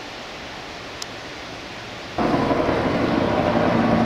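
Steady rushing noise of wind and the flooded river. About two seconds in, it gives way abruptly to the much louder, steady drone of a helicopter flying overhead, its engine and rotor holding a few steady tones.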